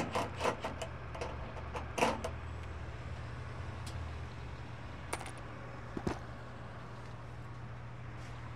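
Steady low engine hum, with scattered light metallic clicks and knocks over it: a quick cluster at the start, a sharper knock about two seconds in, and single clicks near five and six seconds in.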